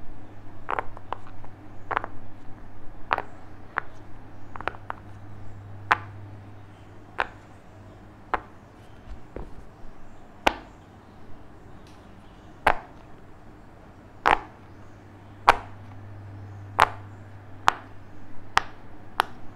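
Silicone pop it fidget toy, its bubbles pressed in one by one, each giving a sharp pop. Several quick, uneven pops come first, then single pops about one a second.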